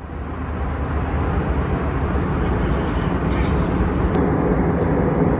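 Steady, loud vehicle rumble that starts abruptly and holds level.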